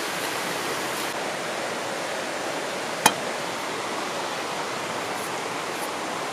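Steady rushing of a flowing river, with a single sharp click about three seconds in.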